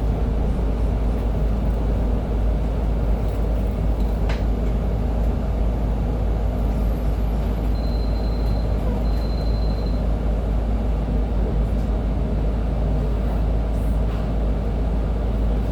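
Interior running noise of a Master RAC-700-3000 electric city bus with a TECO direct-drive motor under way: a steady low rumble of road and drivetrain. A short high tone sounds twice about halfway through.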